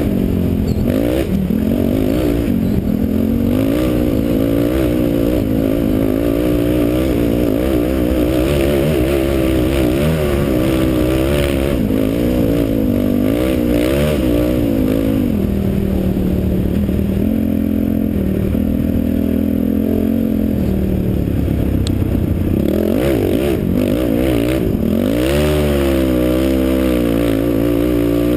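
Honda TRX450R ATV's single-cylinder four-stroke engine under way, its pitch rising and falling constantly with the throttle. It holds steadier for several seconds past the middle, then climbs sharply as the quad accelerates near the end.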